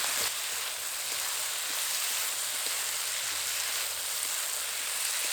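Fried chicken pieces, onion and capsicum sizzling in hot oil and chili sauce in a kadai as they are stirred together, a steady hiss with a few faint clicks.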